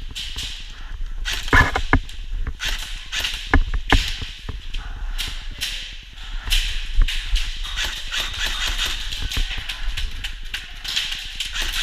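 A run of sharp knocks and clicks over a steady hiss, with louder clusters of knocks about one and a half and four seconds in.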